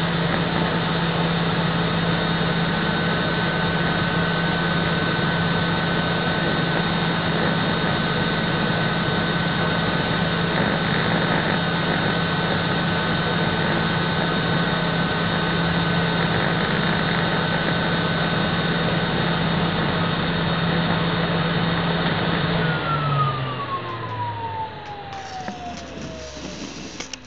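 Vacuum cleaner motor running steadily with a low hum and a steady high whine. Near the end it is switched off and winds down, the whine falling in pitch as the sound fades.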